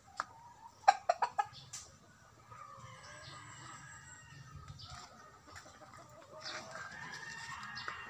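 Free-range chickens clucking: a quick run of short, sharp clucks about a second in, then longer, wavering calls that overlap.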